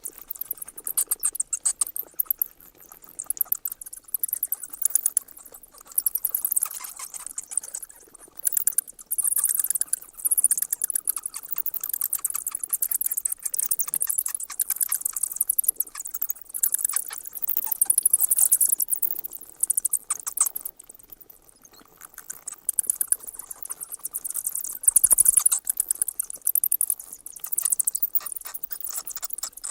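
Bats squeaking: rapid, high-pitched chittering squeaks in dense runs, with brief lulls, the longest a little past the middle.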